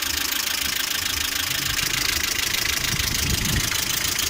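Lada Priora's 21126 sixteen-valve engine idling at operating temperature, with a rapid ticking knock from its hydraulic lifters. The knock is there both hot and cold.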